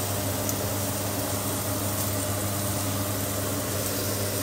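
Steady low kitchen hum with an even hiss over it, as pork and vegetables cook in a wok on a glass-top hob.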